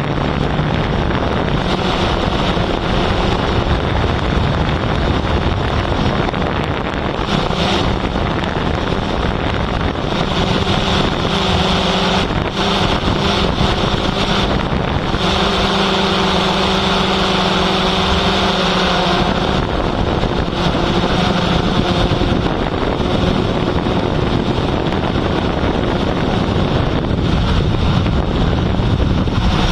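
Steady motor drone with a low hum that shifts in strength now and then, mixed with heavy wind rushing over the microphone.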